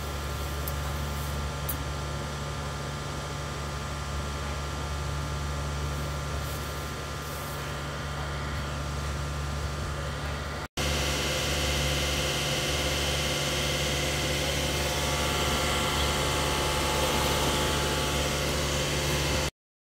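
Steady hiss of rumen gas escaping through a trocar cannula in a bloated cow's left flank, over a constant low hum. After a cut about halfway through, the hiss is louder and brighter, and near the end it stops abruptly.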